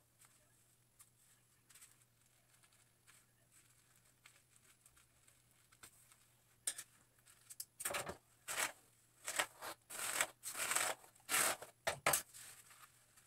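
Plastic highlighting cap crinkling and rustling as strands of hair are pulled through its holes: a run of short scratchy rustles from about seven seconds in until near the end, after a few faint ticks.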